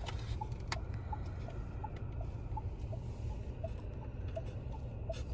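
Faint short electronic beeps, evenly spaced about three a second and alternating between two pitches, over a steady low hum, with a couple of light clicks near the start.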